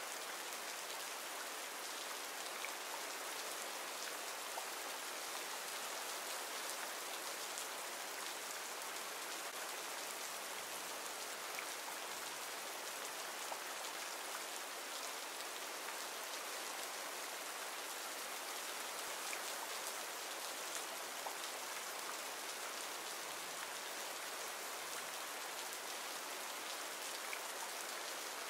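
Steady rain ambience from a recorded rain-sounds track: an even hiss of falling rain with scattered drop ticks.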